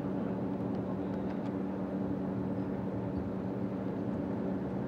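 A steady low mechanical drone that holds an even pitch and level throughout.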